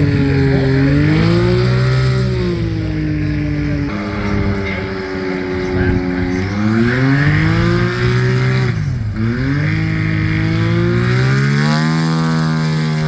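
A high-powered light airplane's piston engine and propeller running on the ground, its pitch rising and falling in slow sweeps as the throttle is worked. The engine drops away sharply about nine seconds in, then climbs again near the end.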